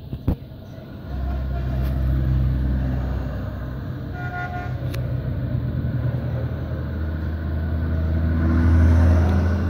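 Old truck's engine rumbling as it drives past, building to its loudest as it goes by near the end, with a short horn toot about four seconds in.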